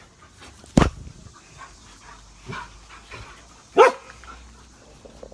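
Dog barking: two loud single barks, about a second and about four seconds in, with a few fainter yips between.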